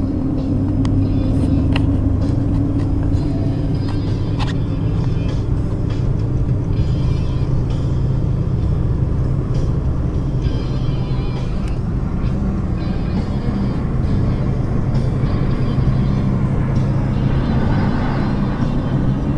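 Steady low drone of a vehicle's engine and tyres on a snow-covered road, heard from inside the cab, with a few light clicks.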